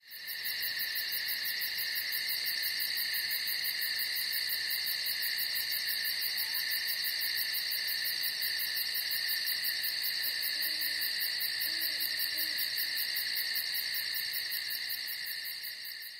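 Night ambience of insects chirring, a steady high sound with a fast even pulse, fading in at the start. A few faint low hoots come about two-thirds through.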